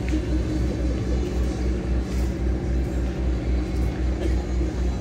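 An engine running at idle, a low, even throb of about three beats a second.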